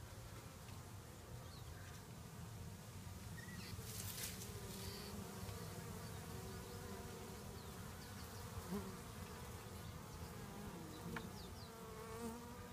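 Honey bees buzzing at the entrance of a wooden hive: a steady hum with the wavering drone of single bees rising and falling as they fly past close by.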